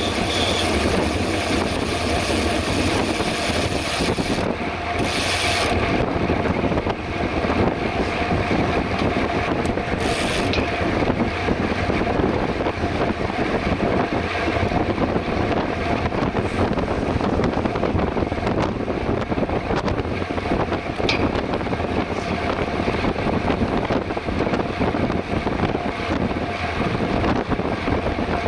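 Mountain bike ridden at speed on a paved road: steady tyre and drivetrain noise with wind on the microphone, and a brief hiss about five seconds in and again about ten seconds in.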